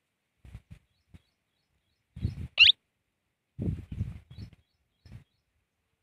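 Young Indian ringneck parakeet giving one short, sharp squeak that rises steeply in pitch about two and a half seconds in, amid several soft, low, muffled sounds.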